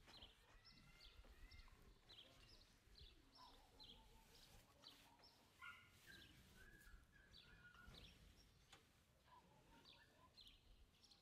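Faint birdsong over near-quiet outdoor background: short high chirps repeated roughly once or twice a second, with a few longer whistled phrases.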